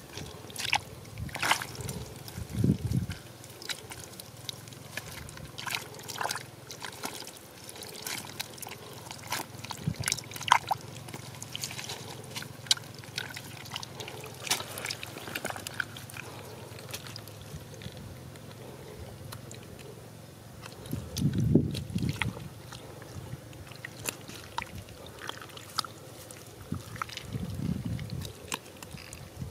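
Hands digging and squelching in wet mud while picking up small fish: a string of short, irregular wet clicks and smacks. Three low rumbles come through, about 3, 21 and 27 seconds in, the one near 21 seconds the loudest.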